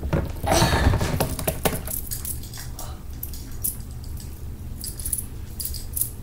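Light clicks and taps of a fidget spinner and its bearing being handled, with a brief rustle early on and a few scattered clicks later, over a low steady hum.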